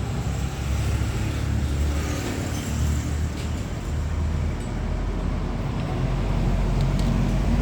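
Steady low rumble of background vehicle or traffic noise, with a few faint light clicks.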